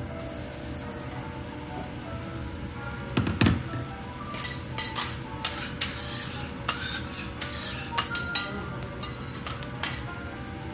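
A pat of butter sizzling on a hot steel teppanyaki griddle, with metal spatulas scraping and clicking sharply against the griddle from about four seconds in. There is a single low thump at about three seconds, and faint music underneath.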